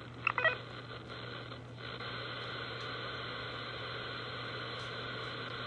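Steady radio static hiss from a software-defined radio receiver tuned near 446 MHz, with a low hum under it. A short burst of chirping tones comes about a third of a second in.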